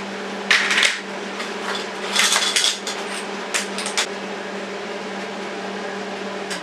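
Electric metalworking tool humming steadily on the steel frame of an office chair, with three short bursts of harsh crackling noise. Near the end the hum cuts off and winds down in pitch as the machine is switched off and the job is finished.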